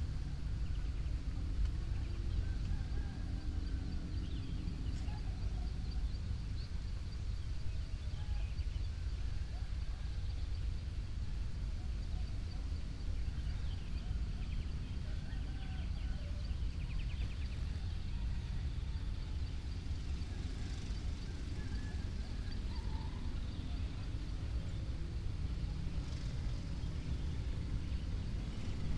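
Rural dawn ambience: scattered short bird calls, among them some domestic fowl, over a steady low rumble and a faint steady high note.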